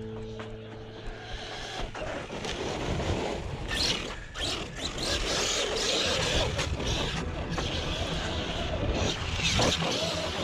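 Electric Traxxas Sledge 6S RC monster truck running at speed over loose dirt: a steady hiss of tyres spraying dirt, broken by sharp knocks from bumps. A strummed guitar chord fades out in the first second.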